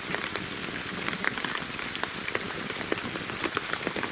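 Falling water drops pattering steadily, heard as an even hiss with many small ticks scattered through it.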